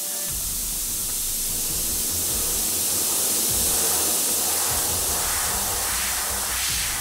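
Steady hiss of compressed air blowing from a blow-gun nozzle, the air stream holding a ball floating above it.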